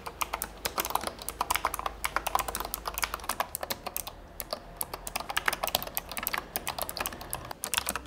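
Typing on a handwired mechanical keyboard in a 3D-printed case: rapid, uneven key clacks, with a brief lull about four seconds in.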